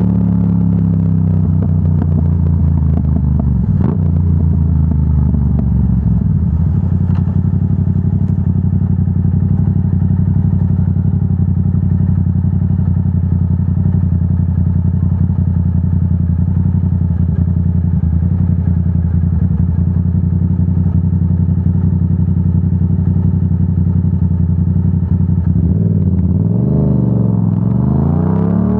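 Yamaha R7's 689 cc parallel-twin engine through a Yoshimura AT2 full exhaust. The revs fall over the first few seconds as the bike slows, then it idles steadily for a long stretch at a stop. Near the end the revs rise as it pulls away.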